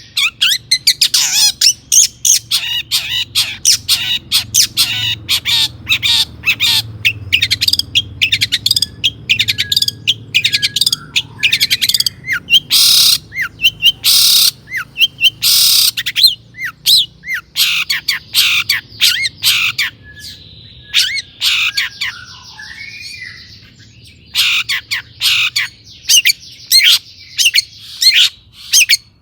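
Long-tailed shrike (cendet) singing: a rapid, harsh run of sharp chattering notes and squawks, with a buzzy trill about twenty seconds in.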